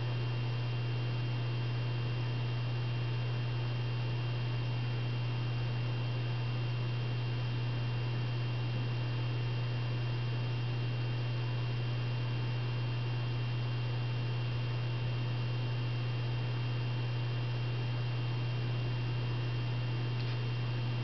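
Steady low electrical hum under an even hiss, with a thin high tone above it.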